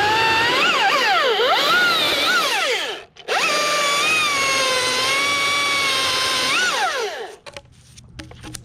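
Husqvarna T540iXP battery chainsaw running with a high whine, its pitch sagging and swooping back up as the chain bites into pine wood. It stops briefly about three seconds in, runs again, and stops near the end.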